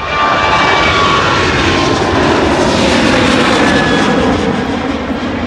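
Boeing 737 airliner's jet engines at takeoff power as it lifts off and climbs away: a loud steady roar with whining tones that slide down in pitch, easing off near the end.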